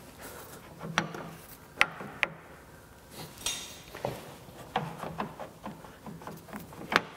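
Scattered sharp clicks and clunks of steel lathe parts being worked by hand, as a Monarch Model K lathe's apron gear and feed rod are eased into engagement, with light rubbing between. The sharpest knocks come about two seconds in and near the end.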